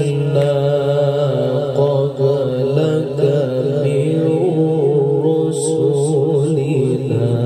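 A man reciting the Quran in the drawn-out, melodic tilawah style, holding long notes with wavering ornaments. His voice comes amplified through a microphone and loudspeaker.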